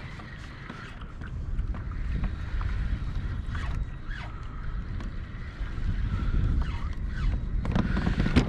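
Wind buffeting the microphone and water lapping against a kayak's hull, rising a little about a second in.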